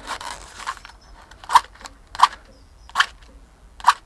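Matches struck against the side of a matchbox four times, short sharp scrapes under a second apart starting about one and a half seconds in. They keep failing to light.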